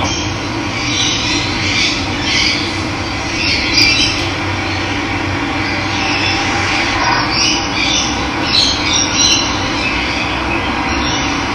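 Steady rush of running water, with birds calling and squawking on and off over it.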